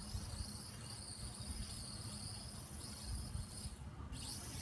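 Crickets chirring steadily in a high, continuous band over an uneven low rumble; the insect sound breaks off briefly about four seconds in, then resumes.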